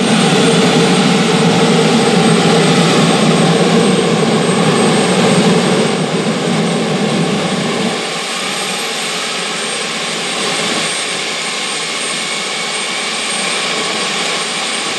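GE J79 turbojet being spun up by its starter before ignition: a loud, even rushing noise with a faint high whine that slowly rises as the compressor winds up. The deeper part of the rushing drops away about eight seconds in, leaving a quieter steady rush.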